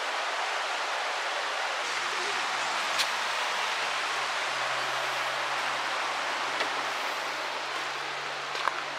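Steady rush of a shallow, rocky river running through riffles. A faint low hum comes in about two seconds in.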